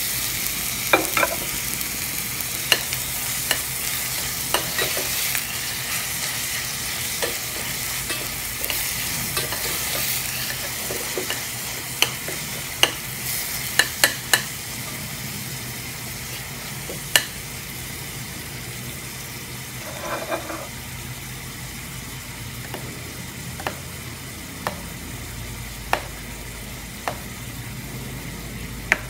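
Chopped onion, garlic and curry leaves sizzling in hot olive oil in a stainless steel saucepan, with sharp clinks of a metal spoon against the pan as they are stirred now and then. The sizzle is strongest at first and slowly eases off.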